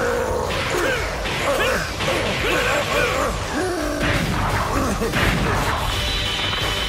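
Anime fight sound effects: a man's wordless straining grunts and cries over background music, with crashing effects as a tiled stone floor cracks under the heavy feet of a growing giant near the end.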